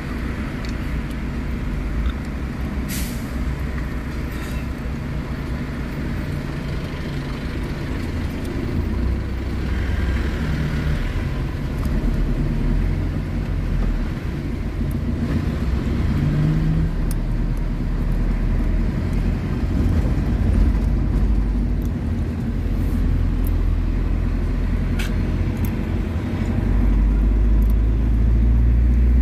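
Car engine and road noise from a car creeping in city traffic, a steady low rumble that grows louder near the end as the car picks up speed, with a few sharp clicks.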